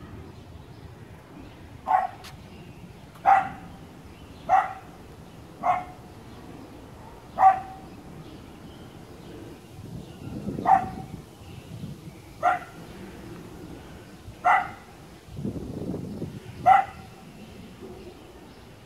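A dog barking, nine single barks spaced about one to two seconds apart.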